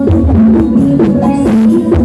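Loud music through a big carnival sound system: a melody line over deep bass hits and drums.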